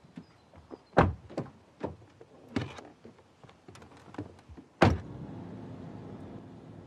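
Car door handling: several clicks and thunks as the door is opened and someone climbs in, then the door shuts with a heavy thunk about five seconds in, the loudest sound. Steady road noise from inside the moving car follows.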